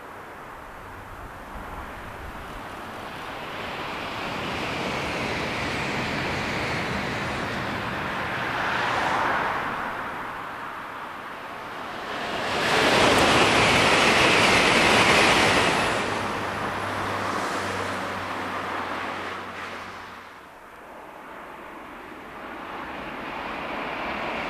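High-speed Shinkansen train, a 700 series, passing at speed: a rushing noise of wheels and air that builds, peaks loudly for about three seconds as it goes by, then fades away. Near the end, another Shinkansen train can be heard approaching, its rush rising again.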